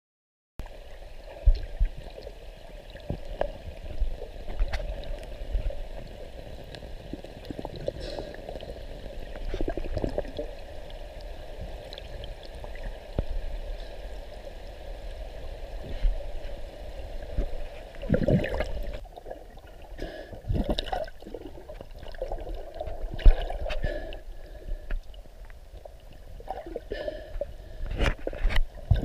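Muffled underwater sound from a camera held below the surface by a snorkeler: water sloshing and gurgling, with scattered knocks and low thumps from the swimmer's movement.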